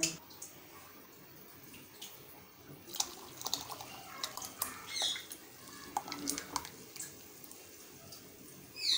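Ground soaked rice being tipped into a metal pan of hot milk and stirred in: a spoon clicking against the pan and milk splashing. Quiet for the first few seconds, then a run of clicks and splashes.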